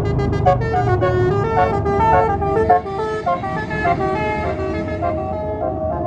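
Tour bus's basuri telolet horn playing a quick melody of short notes, over a low engine rumble that drops away about three seconds in.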